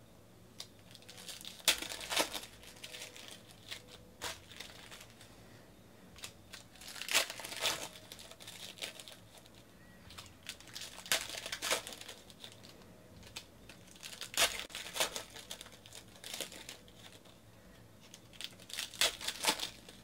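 Foil wrappers of Panini Contenders basketball card packs being torn open and crinkled, in about five short crackly bursts a few seconds apart.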